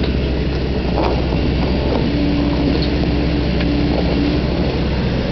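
Hyundai Robex 140-9 crawler excavator's diesel engine running steadily under load while it digs. A steady higher tone joins in about two seconds in, with a short break, and stops at about four and a half seconds.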